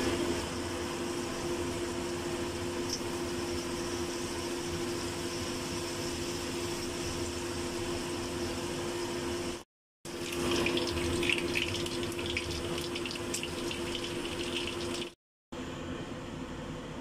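Chicken wings frying in oil in a stainless steel wok: a steady sizzle that cuts out briefly twice, with louder crackling spatter after the first break. After the second break, about two seconds before the end, it gives way to a softer, even hiss of a lidded pot steaming.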